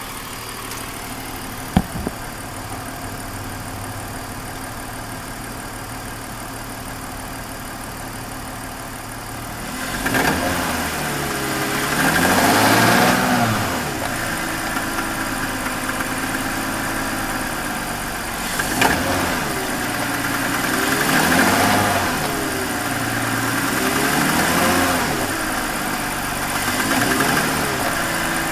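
BMW E39 530i's 3.0-litre inline-six idling steadily, then revved and let fall back several times, with a sharp click about two seconds in. The engine has developed an abnormal noise whose cause has not yet been found.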